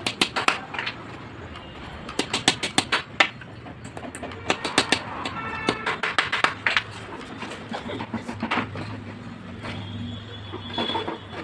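Hammer driving nails into the joint of a wooden frame rail, in quick runs of sharp blows with pauses between.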